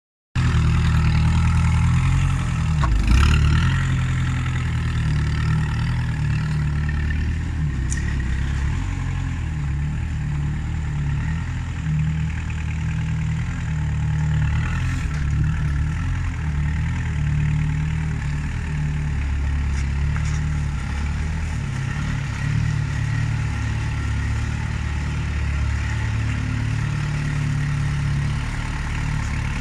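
Kubota diesel engine of a NORCAR sawdust spreader running steadily, with a single knock about three seconds in.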